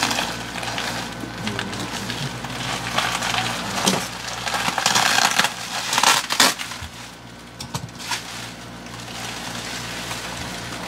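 Plastic bubble wrap crinkling and crackling as it is pulled off a mantel clock, with many sharp crackles. It is loudest over the first six seconds and quieter after about seven seconds.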